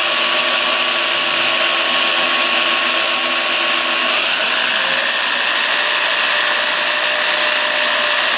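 Corded electric drill running slowly in reverse, an eighth-inch left-hand bit cutting into a broken-off bolt. The motor's whine steps up in pitch about four seconds in.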